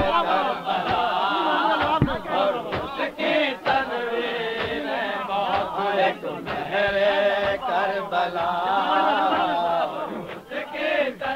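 Several men's voices chanting together in a Shia salam recitation, overlapping and uneven, with scattered sharp knocks, on an old live tape recording with a dull top end.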